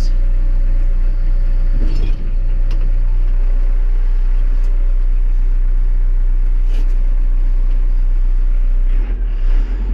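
Backhoe engine running steadily under the operator's control, a heavy low rumble with a couple of brief knocks, its note shifting just after nine seconds.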